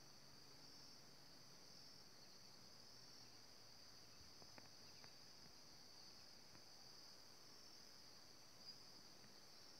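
Faint, steady, high-pitched chirring of insects, a continuous shrill trill without breaks. A couple of faint ticks about halfway through.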